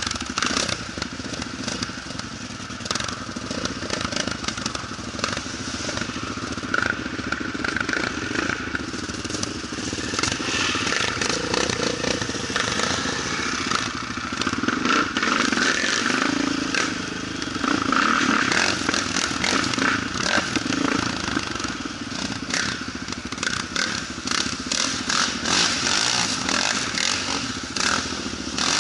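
Quad (ATV) engine running under way, its level and revs rising and falling, with many short clattering knocks and scrapes over it that come thicker near the end.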